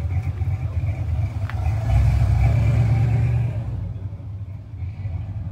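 A motor vehicle's engine rumbling close by. It swells louder about two seconds in and eases off again about a second and a half later.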